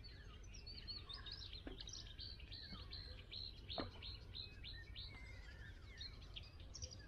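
Several songbirds singing at once, a dense run of short high chirps and trills. Two sharp clicks stand out, the louder one a little past the middle.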